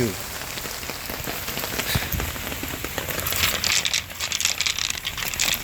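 Rain falling and pattering on surfaces, a dense crackle of drops that thickens about halfway through.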